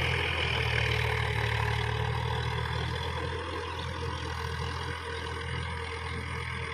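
Tractor diesel engine running steadily as the tractor churns a flooded paddy field: a low, even engine drone with a hiss over it, easing off a little over the seconds.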